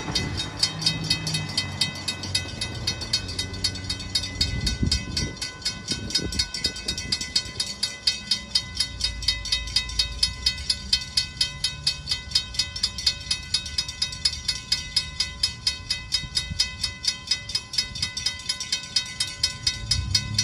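A bell ringing steadily at about three strokes a second, with the rumble of a passing train loud at first and fading over the first few seconds.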